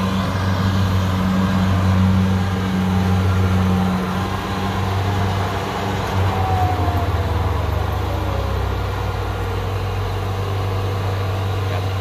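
Kubota DC-60 combine harvester's diesel engine running steadily as the machine creeps forward on its tracks. Its note changes a little about halfway through, and a faint falling whine sounds about six seconds in.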